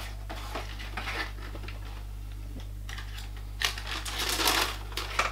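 Cardboard shoebox being opened and its tissue paper rustled, with a few light knocks at first and a loud rustle about three and a half to five seconds in, ending on a sharp click. A steady low hum runs underneath.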